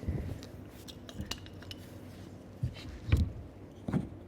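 A timber internal door being handled in its frame, with a 10p coin wedged at the top as a spacer. There are several knocks and light clinks, the loudest about three seconds in.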